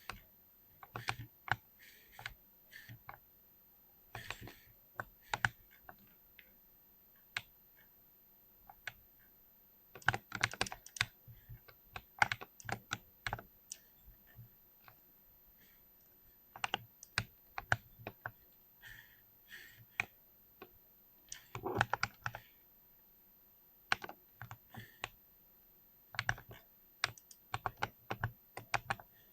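Typing on a mechanical keyboard with Cherry MX Silver linear switches: sharp key clicks in irregular runs, some fast and dense, with short pauses between.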